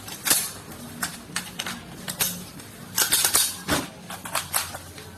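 Metal parts of an M16A1 rifle clicking and clacking together as it is quickly reassembled, a rapid run of sharp, irregular metallic knocks with a busier cluster about three seconds in.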